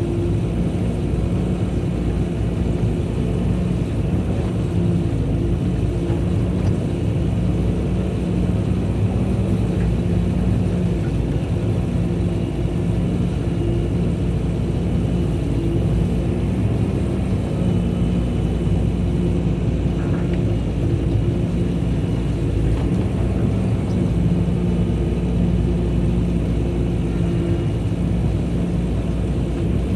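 Excavator engine running steadily at a constant speed, a low, even drone.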